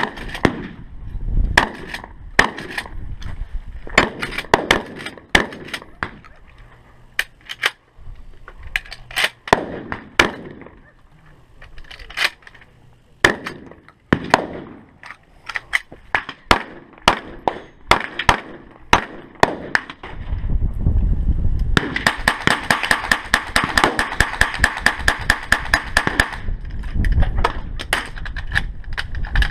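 Gunfire at a shooting range: single shots from several guns at irregular intervals, then a long rapid string of fire lasting about four seconds about two-thirds of the way through, followed by more shots at an even pace.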